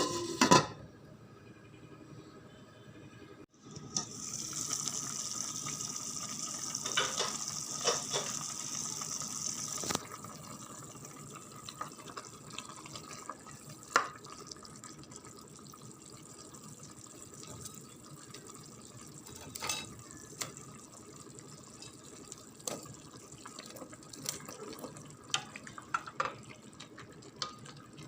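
Kitchen tap running in a sink for about six seconds, then turned off, followed by scattered drips and small clinks. A sharp clatter comes right at the start.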